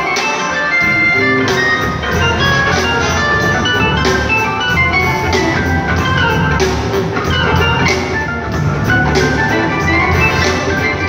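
Live blues-rock band playing loudly, with organ, drum kit and bass guitar under held pitched notes, heard from the audience.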